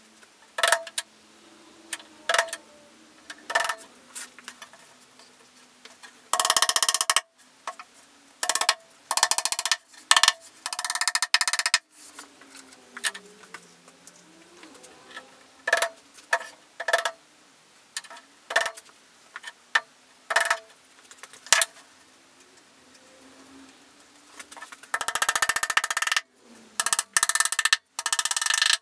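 A small hammer tapping on wooden trim over a plywood box: scattered sharp knocks, some coming in quick runs of about a second.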